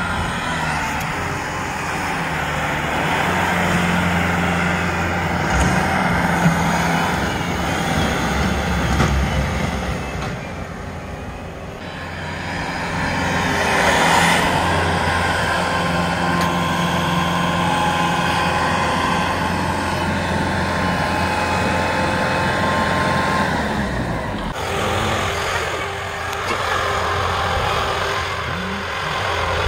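Kubota L6060 tractor running with its rear-mounted snowblower: a steady engine drone with a rushing noise over it, easing off briefly about ten seconds in and rising again.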